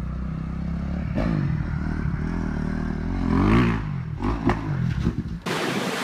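Dirt bike engine revving, its pitch rising and falling, with a few clattering knocks. About five and a half seconds in, it gives way abruptly to a loud rush of storm wind on the microphone.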